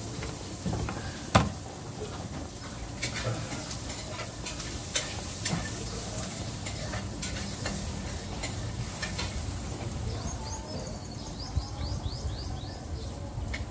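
Scooping and scraping the soft meat of a young coconut out of its shell with a piece of green husk, with wet eating and chewing sounds and scattered sharp clicks. A quick run of short high chirps comes in about ten seconds in.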